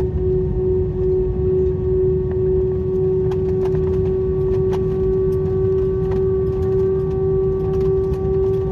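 Airliner cabin noise during the landing roll-out: a steady low rumble from the wheels and engines with a loud, steady whine at one pitch. About five seconds in, fainter higher whines join it, and there are a few light rattling ticks.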